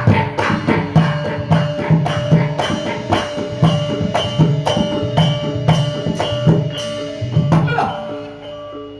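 Loud live dance music led by drums and clacking percussion, with a quick, even beat of sharp strokes over held tones. The music thins out and gets quieter near the end.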